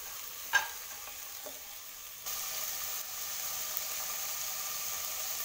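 Chopped vegetables sizzling steadily in hot oil in a nonstick pot. A wooden spatula scrapes once through them about half a second in, and the sizzle grows louder a little after two seconds.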